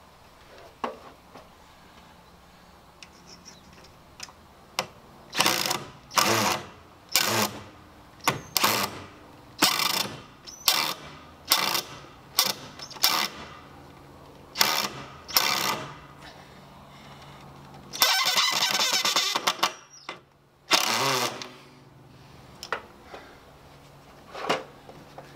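Cordless drill driving 3-inch screws at an angle (toe-screwing) through a 2x4 roof truss into a beam: a string of short trigger bursts, then one longer run of about two seconds, and a few more short bursts near the end.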